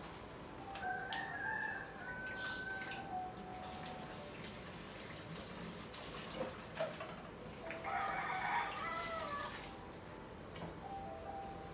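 Water being poured and dishes clinking at a kitchen sink, with a rooster crowing once about eight seconds in, the loudest sound here.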